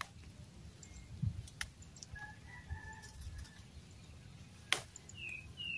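A few sharp snaps a second or more apart, stems broken off by hand as leaves are picked. A distant rooster crows about two seconds in, and a small bird gives two short falling chirps near the end.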